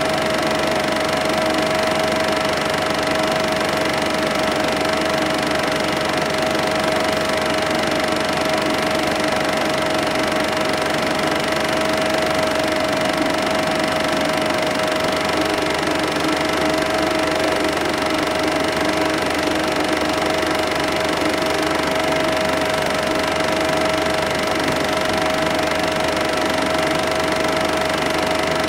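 Cine film projector running: a steady mechanical whir with a constant humming tone.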